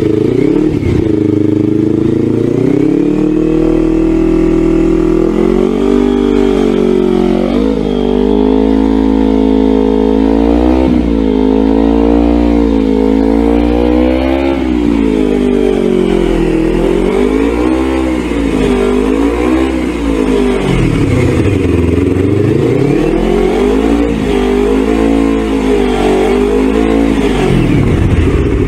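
Yamaha YZF-R3's parallel-twin engine revved through a Yoshimura R77 dual-outlet full exhaust system: held at raised revs for a few seconds, then the throttle blipped up and down about a dozen times, every second or two. It drops back to idle near the end.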